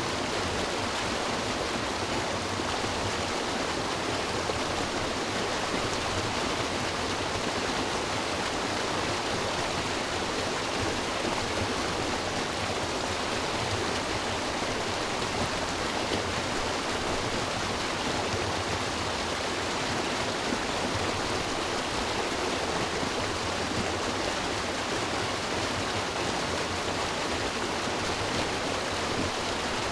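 River water rushing and splashing over rocks in a steady, unbroken flow.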